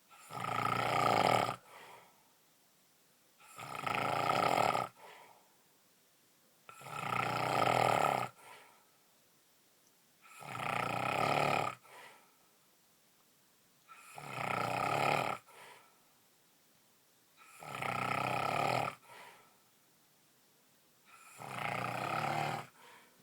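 A man snoring loudly in a steady rhythm: seven long snores, one about every three and a half seconds, each followed by a short, quieter sound.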